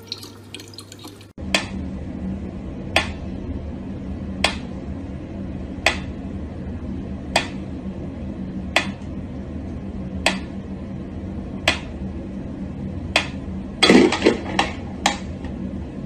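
A mechanical pendulum metronome ticking slowly and evenly, about one sharp tick every second and a half, over a low steady hum. Near the end a short cluster of louder, irregular knocks and clatter breaks in.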